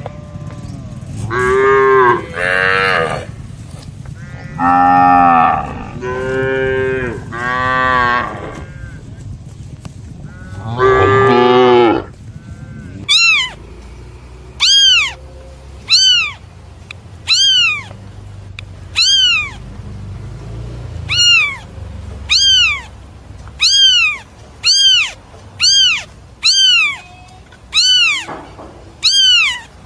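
Cattle mooing, about six long low calls. After about twelve seconds they give way to a cat meowing over and over: more than a dozen short, high meows, each rising and falling in pitch.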